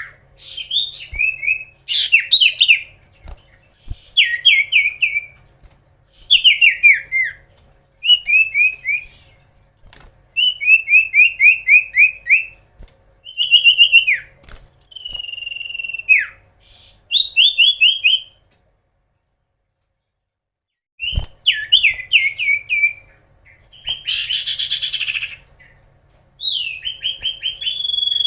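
Common iora (cipoh) singing loudly in short repeated phrases, each a fast run of down-slurred whistled notes, with a gap of a few seconds about two-thirds through and a harsher rasping note near the end.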